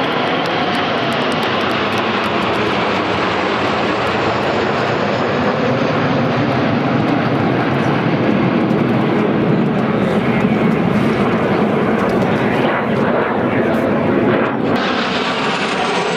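A large formation of Kawasaki T-4 jet trainers passing overhead: the steady, loud noise of many twin-turbofan engines at once, swelling a little through the middle. Near the end the sound turns brighter and hissier.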